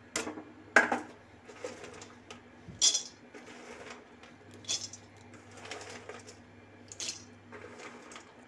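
A spatula stirring sliced almonds, cashews and other dry fruits in a dry metal pan: scraping and rattling, with about five sharp clinks against the pan. The nuts are being dry-roasted without oil.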